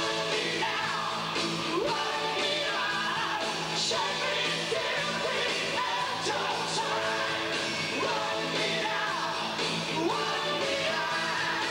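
Live hard rock band playing electric guitar, bass and drums under a male lead singer, whose voice slides up and down through high notes.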